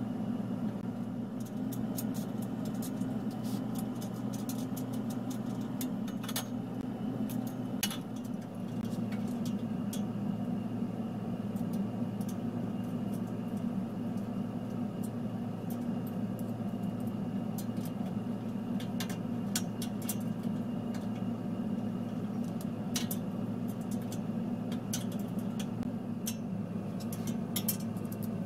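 Steady low hum that does not change, under scattered light clicks and taps of small metal parts and hand tools being handled while screws and rod fittings are fastened to an aluminium frame.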